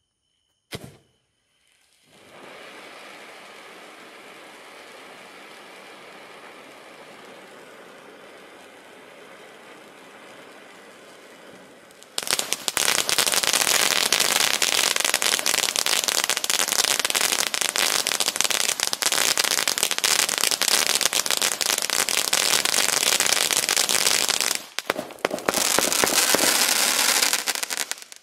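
Winda Fireworks 'Killer Fountain' 24-shot cake firing. A short click comes just under a second in, then a steady hiss for about ten seconds. About twelve seconds in, a much louder, dense rapid crackling begins; it breaks off for a moment near the end, starts again and stops.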